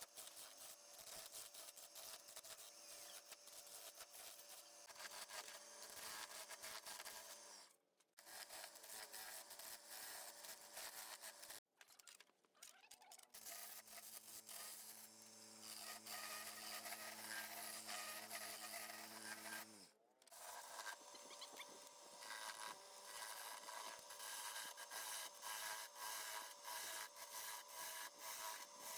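Wood lathe turning: a hand-held turning tool cutting and scraping the spinning wood in a continuous rasping stream over a faint machine hum. It breaks off briefly three times.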